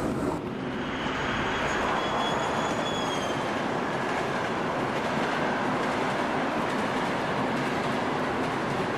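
OO gauge model train running past: a model Kestrel diesel locomotive hauling a long rake of mineral wagons, with a steady rumble of the wheels on the track. A thin high whine sounds for a couple of seconds about a second in.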